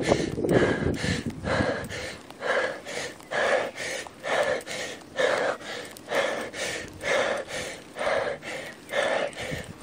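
A cyclist breathing hard and rhythmically, about two loud breaths a second, under heavy effort on a steep 12–17% climb. Wind rumble on the microphone in the first second.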